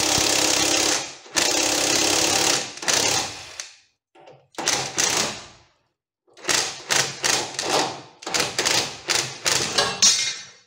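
Impact wrench with a 15 mm socket hammering on a rear shock absorber's upper mounting nut to loosen it. It runs in two long bursts, then a few shorter ones, then a quick string of short trigger bursts as the nut runs off.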